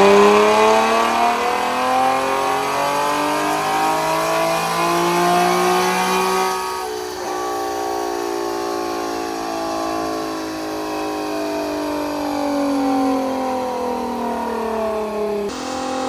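Nissan 370Z Nismo's 3.7-litre V6 engine and exhaust, revs falling slowly as the car decelerates: two long falling runs, the second starting about seven seconds in, with an abrupt change near the end.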